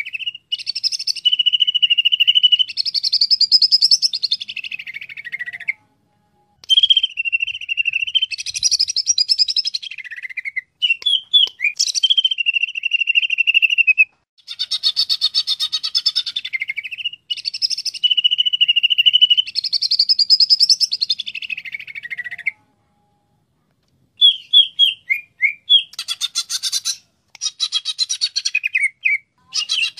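Cucak ijo (green leafbird) singing loudly: long, rapid, high-pitched phrases of fast chattering notes around a held whistled note. The phrases are separated by short pauses and repeat, and near the end they give way to shorter, choppy notes.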